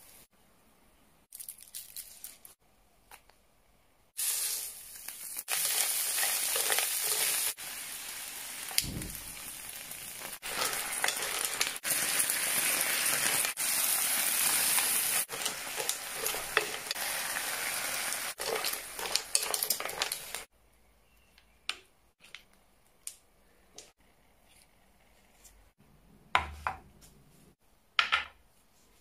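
Seafood frying in a hot electric griddle pan: a steady sizzle starts about four seconds in and cuts off suddenly about two-thirds of the way through. Before and after it come scattered light clicks and knocks, with a sharper knock near the end as a glass is set down on a board.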